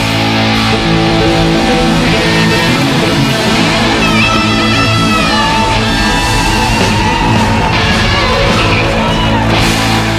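Live rock band playing loudly, led by a Stratocaster electric guitar. The guitar plays a lead line with bends and slides in pitch over the band's held chords and drums.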